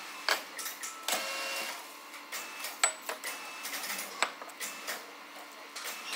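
A round steel bar being fitted into a lathe's three-jaw chuck: several sharp metal knocks and clinks, a few with a brief ring. The lathe is stopped.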